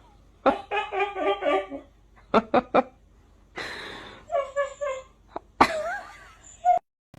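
Short bursts of a voice, pulsing like laughter, broken by pauses and a few sharp clicks, with a wavering, gliding call near the end.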